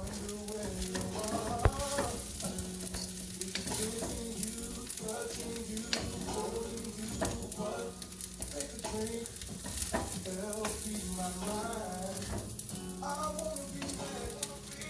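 Fried rice sizzling in a hot pan while it is stirred and tossed, the spatula clicking and scraping against the pan many times throughout.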